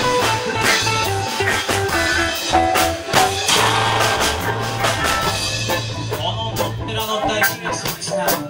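Live band playing an instrumental passage: a steady, repeating bass line under electric guitar and keyboard, with drum hits.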